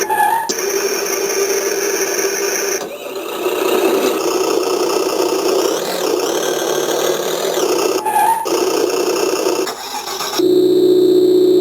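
Synthesized engine sounds from an RC model's electronic engine-sound module played through its small speaker, switching between engine types with a short chirp at each change, about a fifth of a second in and again about eight seconds in. The simulated engine idles steadily and revs up and back down around the middle. Near the end it gives way to a steady electronic tone.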